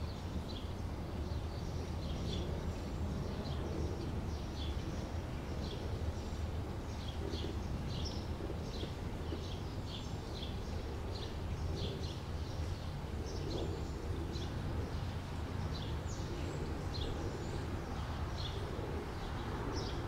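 Small birds chirping repeatedly in short, high notes, one or two a second, over a steady low background rumble.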